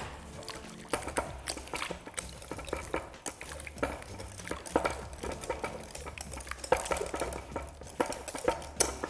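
Metal wire whisk stirring ricotta cream in a glass bowl: a steady run of irregular clicks and scrapes as the wires knock against the glass.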